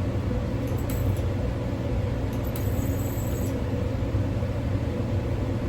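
Steady low machine hum, broken twice by short high-pitched whines from an ultrasonic dental scaler being tried on a dog's teeth: about half a second in, and again for about a second from two and a half seconds in.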